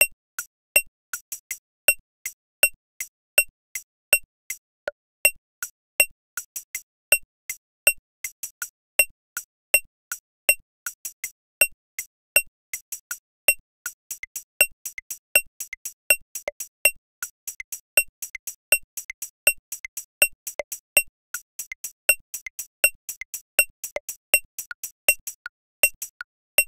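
Metronome app clicking steady eighth notes at quarter note 80, about three clicks a second. Louder, higher accent clicks mark uneven groups of two and three as the meter changes from bar to bar, with quieter clicks between.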